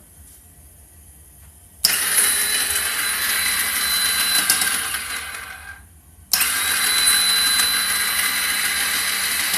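2009 Kawasaki Ninja 250R's electric starter cranking its parallel-twin engine in two long attempts of about four and three seconds, with a steady high whine. The engine turns over but doesn't catch: the bike won't start.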